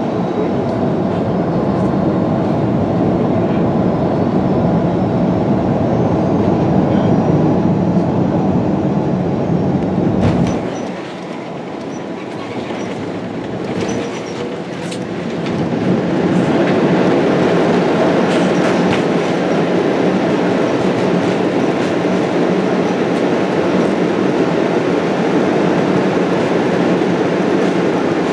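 Airbus A330-200 cabin noise through landing: a loud, steady rush of engines and airflow whose deep rumble drops away sharply about ten seconds in. A few knocks and a rumble of the wheels meeting the runway follow, and from about sixteen seconds the rush swells again and stays loud through the landing roll.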